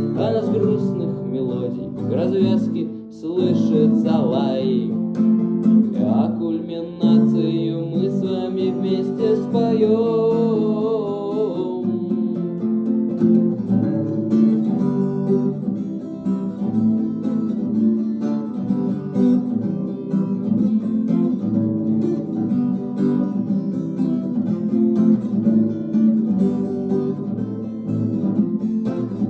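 Instrumental passage of a song: acoustic guitar strumming and picking, with a wavering melody line over it in the first dozen seconds.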